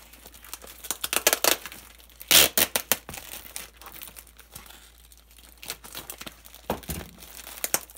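Brown paper wrapping and packing tape on a parcel being torn and crinkled by hand in irregular bursts, the loudest rip about two and a half seconds in.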